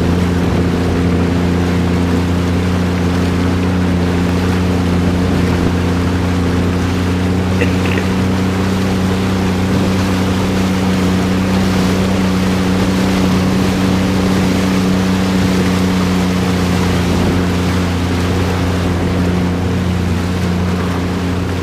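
Jet ski engine running at a steady speed underway, with a constant rush of water and wind.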